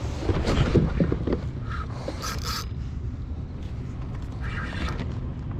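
Scraping and rubbing handling noise, loudest in the first second and a half, over a steady low hum; a short hiss about two seconds in.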